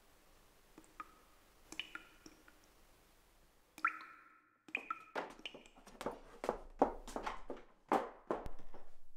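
A few faint small clicks, each ringing briefly, as small hard objects are handled. From about four seconds in come many quick knocks, thumps and scrapes of things being moved around.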